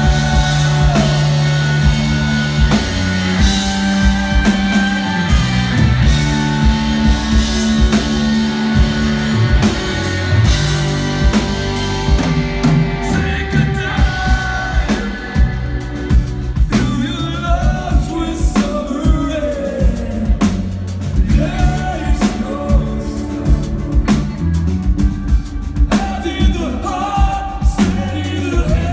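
Live rock band playing a song: distorted electric guitars, bass and a drum kit keeping a steady beat, with a male lead singer singing over them.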